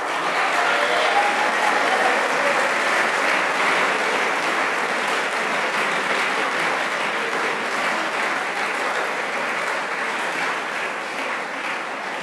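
Audience applauding: a steady round of clapping that eases off slightly near the end.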